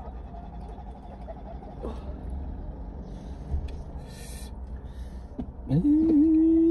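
A person humming a held note about six seconds in, dipping down and back up in pitch, over a low steady rumble inside a car cabin. Before that come a few short hissing breaths.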